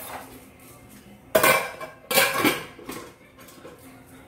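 Dishes and cutlery clattering at a kitchen sink: two loud clatters, one about a second and a half in and another just after two seconds, each ringing briefly.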